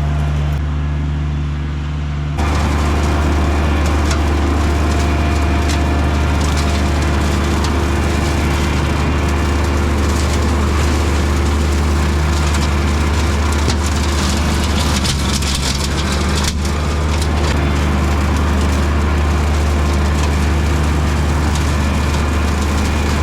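Compact diesel tractor running steadily under load, mowing brush with a rear rotary cutter (brushhog). The noise grows suddenly louder about two seconds in.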